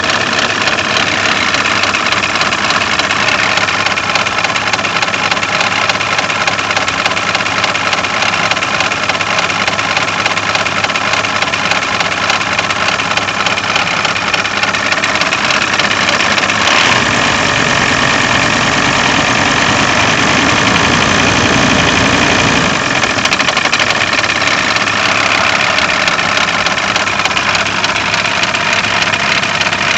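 VW LT28 diesel engine idling with a knock from the crankshaft damper pulley, the sign of a failing harmonic damper pulley. A little past the middle it runs fuller and slightly louder for several seconds.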